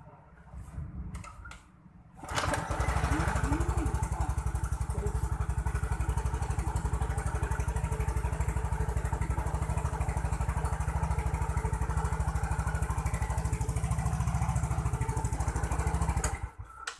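Yamaha Mio J scooter's single-cylinder engine starting about two seconds in, idling steadily, then shut off shortly before the end. It is being test-run after a repair for lost compression.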